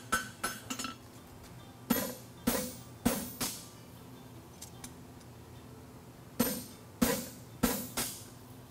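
Farrier's hammer striking a steel draft horseshoe on an anvil while forging the bevel and safing. A quick run of ringing blows in the first second, then two groups of four heavier blows about half a second apart, with a pause between them.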